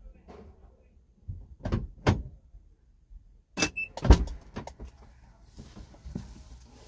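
Several sharp knocks and clunks, the loudest about four seconds in, with a brief squeak just before it and lighter knocks and rustling after.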